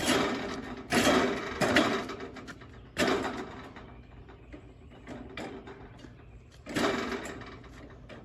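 Seamless gutter machine running, rolling out a length of gutter over a steady low hum, with a few loud clatters about a second, three seconds and seven seconds in, each dying away.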